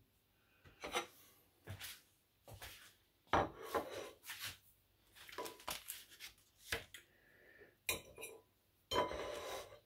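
A metal fork and a ceramic plate clinking and scraping in scattered short knocks, with the plate set down on a wooden counter.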